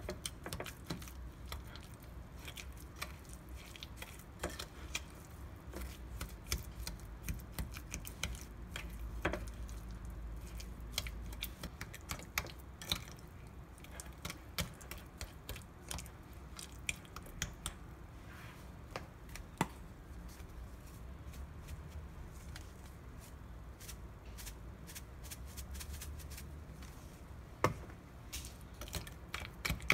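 A plastic spoon stirring and mashing a soft butter, garlic and sugar mixture in a glass dish. Soft squishing comes with frequent irregular small clicks and taps of the spoon against the glass.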